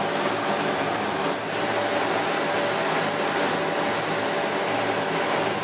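Steady machine hum of aquarium equipment: an even whirring with several steady tones underneath.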